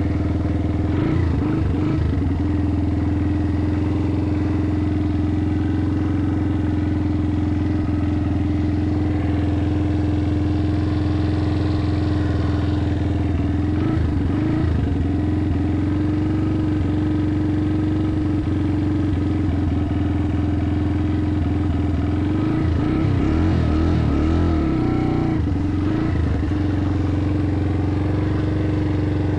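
Motorbike engine running at a steady, nearly unchanging pitch while riding.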